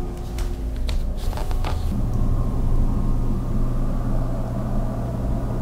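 A few light footsteps and knocks on a wooden floor in the first two seconds, then a steady low hum with a rumble under it sets in and holds.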